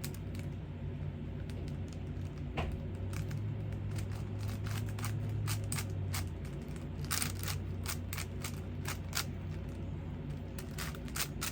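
Plastic 5x5 Rubik's cube being turned quickly, its layers clicking and clacking in irregular runs, over a steady low hum.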